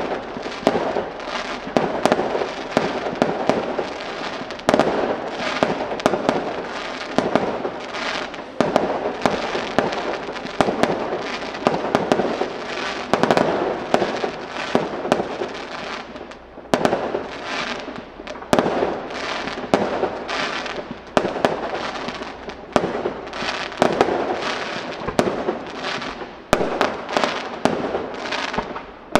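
Fireworks display: aerial shells bursting in quick succession, sharp bangs coming several a second over continuous crackling.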